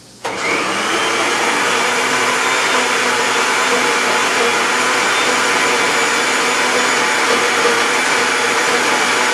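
Electric blender switched on just after the start and running steadily and loudly, puréeing fresh parsley with water, vinegar and salt into a thick sauce.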